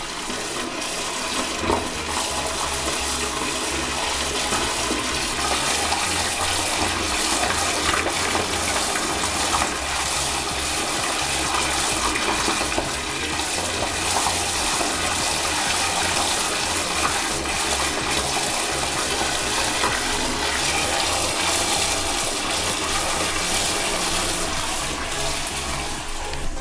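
Water running steadily into a toilet bowl to test whether the toilet is the source of a leak through the floor, one continuous rush of water with no break.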